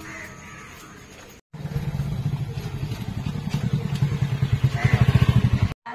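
A motorcycle engine running with a rapid low pulsing, starting abruptly about a second and a half in and growing louder near the end.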